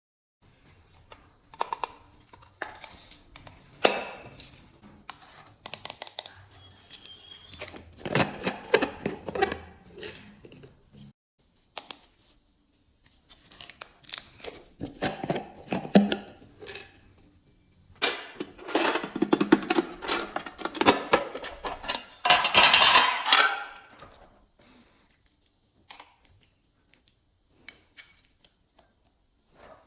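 Glossy slime being worked by hand, with sticky crackles, clicks and small air pops in uneven spells and short pauses between. The busiest, loudest stretch comes a little past the middle.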